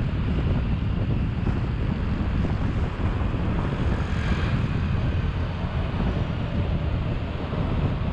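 Wind buffeting the microphone as a steady low rumble over continuous road-traffic noise, with a faint brief whine about halfway through.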